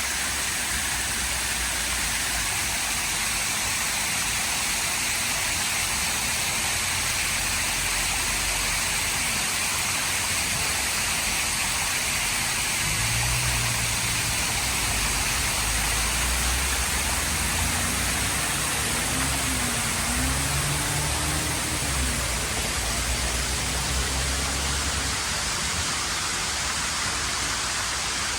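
Steady rushing noise with no breaks, with a faint low wavering hum underneath for a stretch in the middle.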